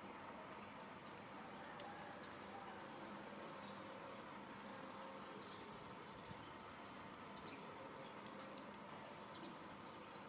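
Faint insect chirping: short, high chirps repeating about twice a second, over a faint steady hum.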